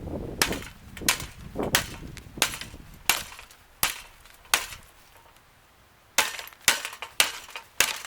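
Repeated hard blows smashing a Lasko box fan, with cracking and clattering from its breaking housing: seven strikes at an even pace, a short pause, then four more.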